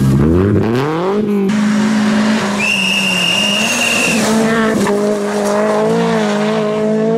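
Rally car engines running hard at high revs, rising over the first second and then held steady. A high-pitched whine sounds for about a second and a half midway. From about four seconds in, a second car's engine is heard sliding through a gravel corner.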